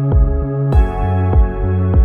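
Background music: a mellow new-age style track with a steady low beat about every half second and sustained chords, one changing about two thirds of a second in.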